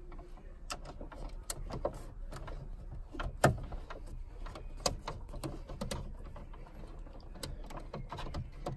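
Irregular small clicks and taps of a screwdriver and screws being worked on dashboard trim, with one sharper knock about three and a half seconds in, over a steady low hum.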